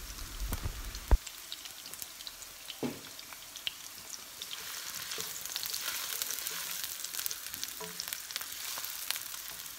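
Chopped onion and garlic sizzling in hot oil in a nonstick frying pan, a little louder after a few seconds. There is a sharp knock about a second in, and a wooden spatula stirs near the end.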